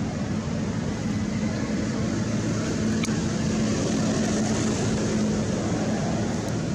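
Steady rushing noise with a low engine hum that swells about three to five seconds in and then fades.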